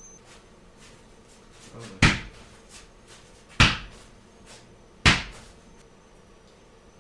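A small lawn-tractor tyre on its steel rim bounced hard on a concrete floor three times, about a second and a half apart, each a loud thud with a short ring.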